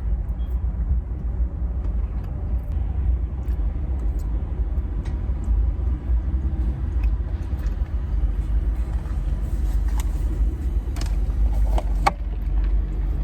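Steady low rumble of a car idling, heard from inside the cabin, with a few light clicks and taps near the end.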